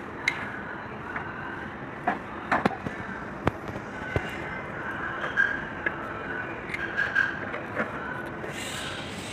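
About ten sharp knocks and clinks, irregularly spaced, over steady background noise, with a few short metallic rings among them.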